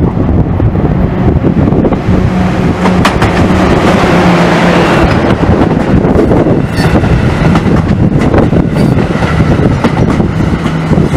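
NJ Transit Raritan Valley Line train of multilevel coaches approaching and passing close by: a loud, steady rumble with a low hum and scattered sharp clicks from the wheels on the rails.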